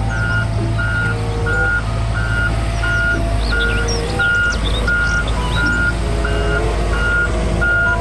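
Volvo wheeled excavator driving, its diesel engine running steadily under a warning alarm that beeps at an even pace, about three beeps every two seconds.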